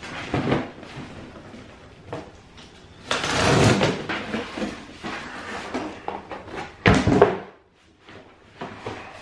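A cardboard shipping box being opened by hand: irregular scraping and rustling of cardboard, with a longer, loud scraping noise about three seconds in as the tape is cut, and another loud one about seven seconds in as the shoebox inside is pulled out.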